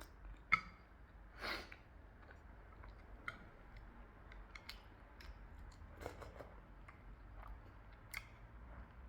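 Close-miked chewing of food, with scattered wet mouth clicks and a sharp click about half a second in.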